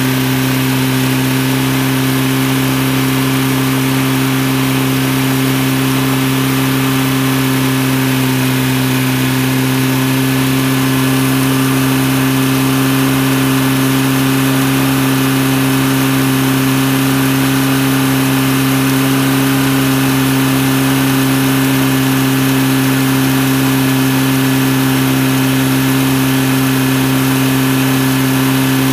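Car engine fed by a Weber 32/34 DMTL twin-choke carburettor idling steadily, an even hum with no change in speed.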